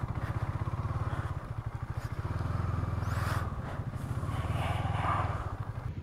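KTM Duke 250's single-cylinder engine running steadily with an even beat as the motorcycle is ridden. The note swells a little about two seconds in and again near the end.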